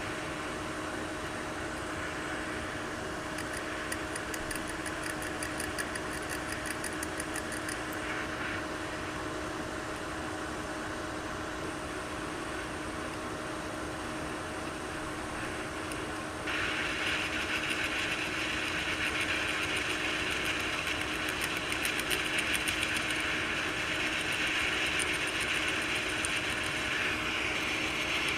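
Steady whir of a small electric blower with a low hum; about sixteen seconds in, a louder rush of air starts suddenly and carries on, as hot air is blown over a circuit board to soften cured solder mask.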